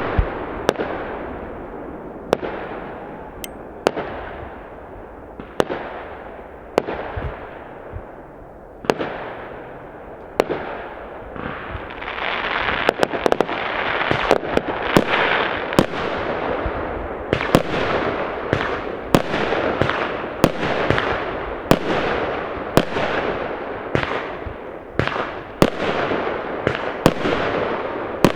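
Fireworks going off: sharp bangs about every second, each trailing off in a long fading echo, with a thicker, continuous crackle filling in from about halfway through.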